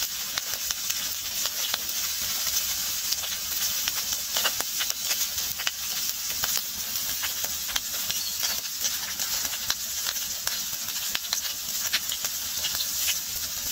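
Steaks sizzling on a flat steel hotplate over a wood fire: a steady high hiss dotted with many small pops and crackles.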